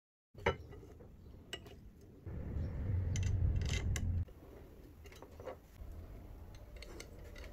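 Small metal clicks and taps from handling M5 screws, a hex driver and a blue aluminium extrusion beam with its bracket, with a louder low rubbing rumble about two to four seconds in.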